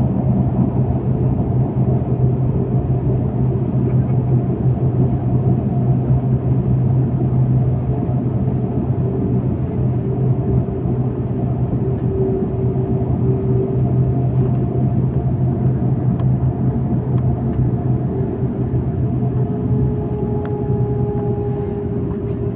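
Airbus A330-200 cabin noise while taxiing: a steady low drone with a constant hum, and a faint higher tone coming in near the end.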